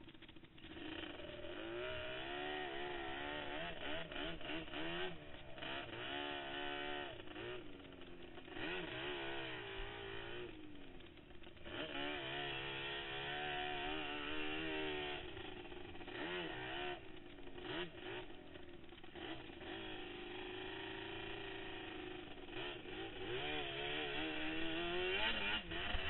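Quad (ATV) engine revving up and down with the throttle as it rides over sand, its pitch rising and falling every second or so, with brief drops where it eases off.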